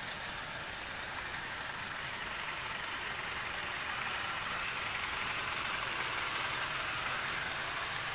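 Steady traffic noise in a jam, heard from inside a minibus: vehicle engines running under an even hiss, with a low engine hum coming in about two-thirds of the way through.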